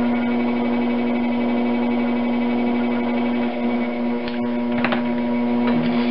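Electric potter's wheel motor humming steadily at one pitch as the wheel spins. A couple of brief clicks come about four and five seconds in.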